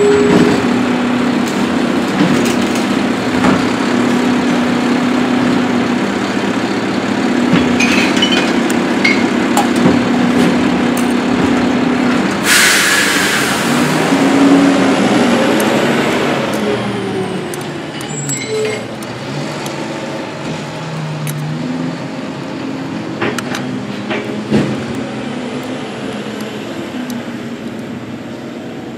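A motor vehicle running steadily, with a sharp burst of hissing air about twelve seconds in and a few light knocks.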